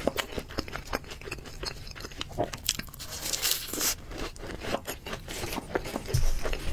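Close-miked chewing: a quick, uneven run of wet smacks and clicks as a mouthful of food is bitten and chewed, with a dull low bump about six seconds in.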